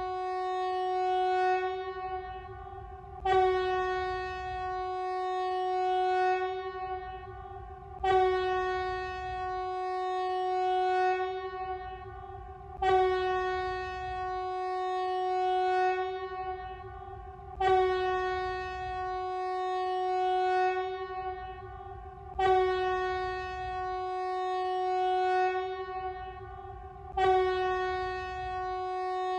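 Emergency warning alarm sounding one steady tone, restarting with a sharp attack about every five seconds and swelling between restarts.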